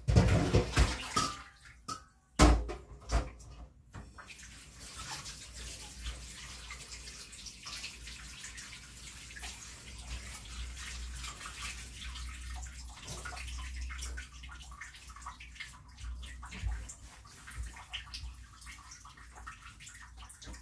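Kitchen tap running into a metal sink while things are rinsed by hand under the stream. A few loud knocks and clatters come in the first three seconds, then the water runs steadily.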